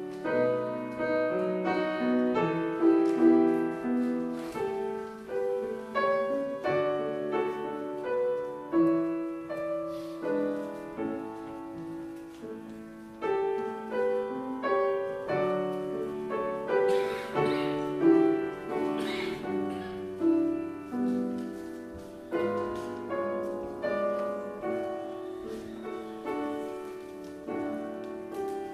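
Piano music: a calm piece of notes and chords, each struck and then fading away.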